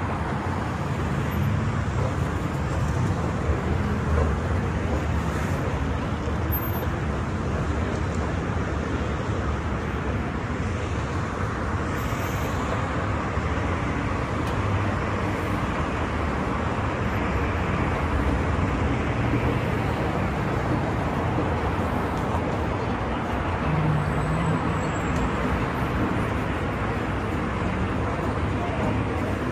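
Steady road traffic on a busy city street: a continuous low rumble of passing cars and engines.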